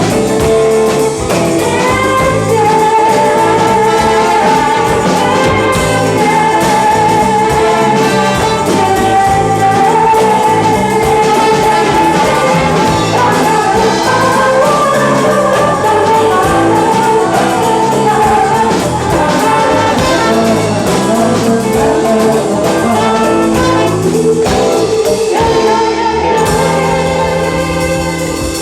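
Live band playing a song with singing; the music thins out near the end.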